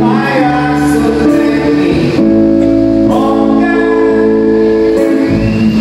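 Live band music: a man singing into a microphone over electric guitar and bass guitar.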